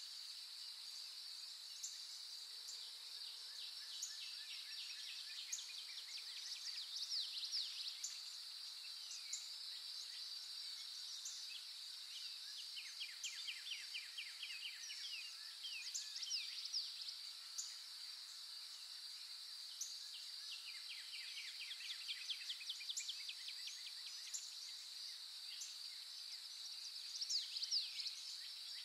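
Outdoor nature ambience: a steady high-pitched insect drone, with birds calling in quick trilled runs several times.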